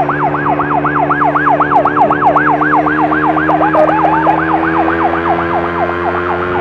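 Electronic emergency siren on a fast yelp, sweeping up and down about five times a second, over a steady engine drone.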